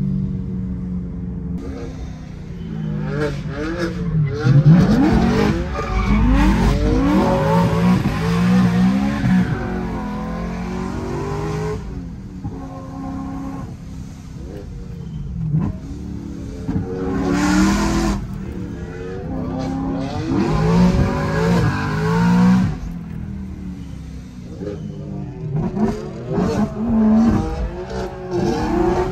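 Supercharged, straight-piped BMW M3 E90 V8 heard from inside the cabin, revving up and falling back again and again through the gears, its pitch rising and dropping with each pull.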